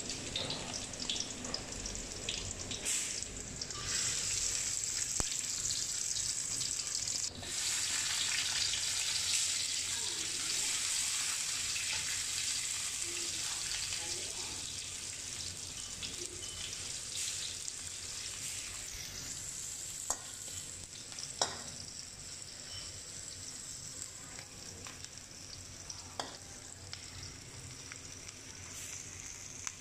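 Sliced garlic and shallots sizzling in hot oil in a metal wok, stirred with a metal spatula. The sizzle grows louder a few seconds in and slowly fades over the second half, with a few sharp clicks of the spatula against the wok.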